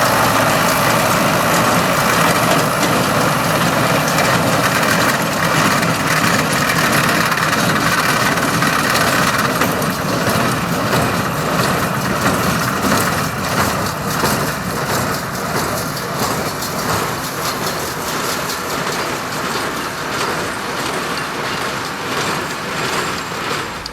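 Ford 7700 tractor's diesel engine running under load with a Claas conventional square baler working behind it: a steady, loud mechanical din that grows somewhat quieter through the second half.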